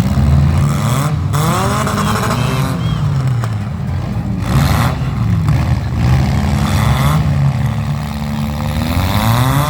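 Demolition derby car engines revving, their pitch rising and falling again and again, with a few brief bursts of noise in between.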